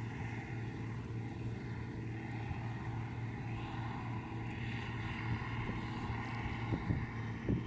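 Bizon combine harvester running steadily at work, a continuous diesel-engine and machinery drone heard across the field, with a few brief bumps near the end.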